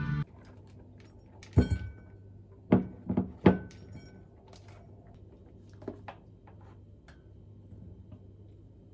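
Metal spoon and plastic container knocking against a ceramic bowl as rice is spooned out: four sharp clinks, two with a brief ring, then lighter clicks and taps.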